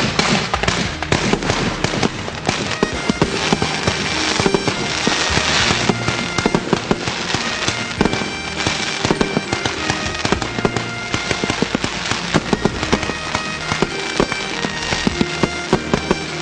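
Fireworks going off in a rapid, continuous string of cracks and bangs, over background music.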